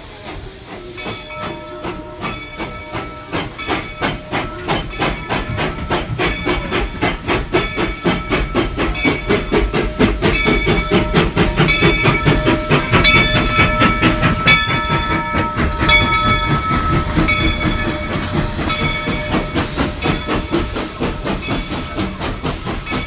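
Steam locomotive passing at close range, its exhaust chuffing in a rapid, even beat over the hiss of steam. The chuffs grow louder towards the middle as it comes alongside, then ease off as it moves away. A steady high ringing tone runs under them for most of the pass.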